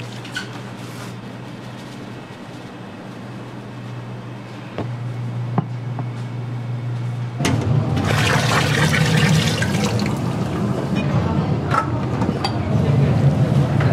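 A steady low hum, then about halfway through the sudden loud rush of water boiling in a stainless steel noodle cooker.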